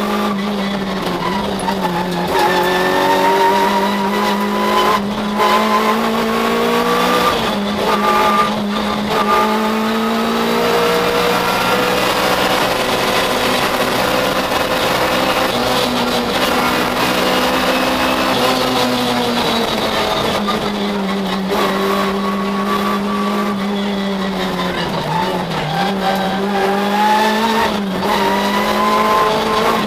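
Citroën Saxo VTS rally car's four-cylinder engine heard from inside the cabin, revving hard and climbing in pitch, dropping at each gear change, then holding steadier revs before pulling up through the gears again near the end. A couple of short knocks come about five and eight seconds in.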